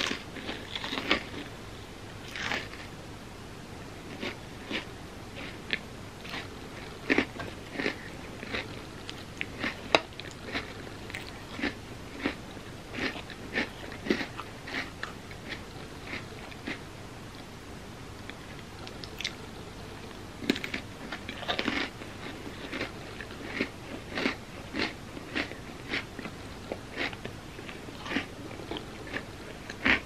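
Close-miked chewing and crunching of crisp cookie and chocolate candy pieces: many short crisp crunches, often one or two a second, with a quieter lull about midway.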